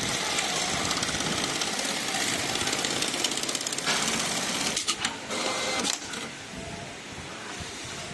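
GT221E-3020 computerized pattern sewing machine stitching at speed, a fast, even run of needle strokes that stops about six seconds in.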